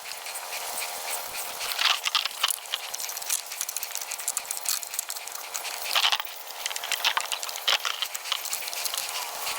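Irregular clicks and light rattles of metal and plastic chainsaw parts being handled and fitted together.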